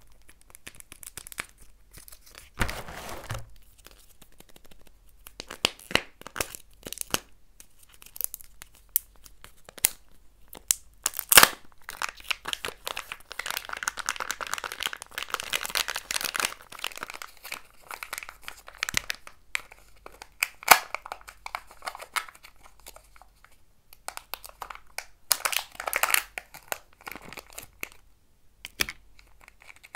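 A Kinder Joy egg being unwrapped and opened: its foil wrapper and the foil and paper lids on the two plastic halves crinkling and tearing as they are peeled off, with a long stretch of crinkling a little before the middle. Sharp plastic clicks and snaps come throughout as the egg and its toy capsule are handled and pulled apart, the loudest about eleven seconds in and again near two-thirds through.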